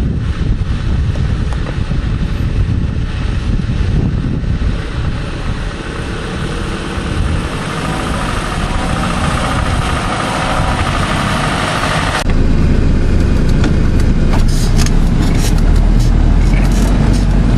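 4x4 vehicle driving on a gravel track. Its engine and tyres grow louder and higher in pitch as it approaches. After a sudden cut about twelve seconds in, the engine is heard from inside the cab as a louder, deeper rumble, with rattles and knocks from bumping over rough, stony ground.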